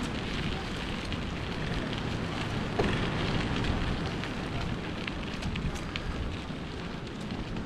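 Wind rushing and buffeting over the microphone, a steady noise with a few faint scattered ticks.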